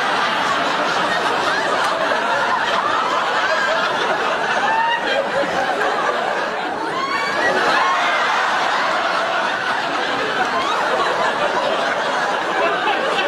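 Studio audience laughing continuously, many voices overlapping with chuckles and higher squeals of laughter.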